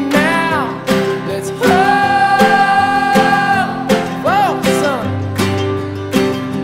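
Background music: a song with strummed acoustic guitar and a held, sliding melody line.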